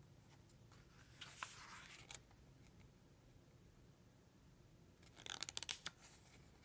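Faint rustle of a book page being turned, then a quick run of soft clicks about five seconds in.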